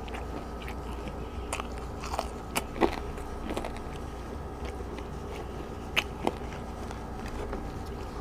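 Close-miked chewing of crispy food: scattered sharp crunches between quieter chewing, loudest a little under three seconds in and again at about six seconds, over a steady low hum.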